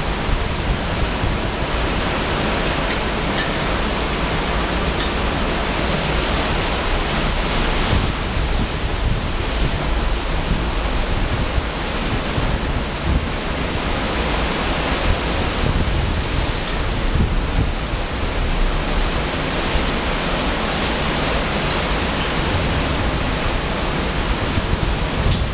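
Hurricane winds at tropical-storm force gusting through trees, with wind buffeting the microphone: a loud, steady rush that swells with each gust.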